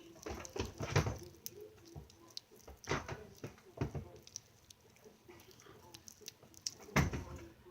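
Scattered small clicks and a few soft thumping bursts of objects being handled, the loudest about a second, three seconds and seven seconds in.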